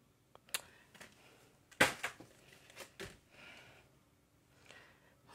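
Plastic-sleeved, card-backed rubber stamp packages being handled and shuffled by hand: a few light crinkles and taps, the sharpest about two seconds in.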